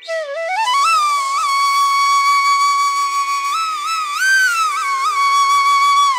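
Background music: a solo flute melody that slides up into a long held note, climbs to a higher, ornamented phrase around the middle, then returns to the held note, over a quiet steady drone.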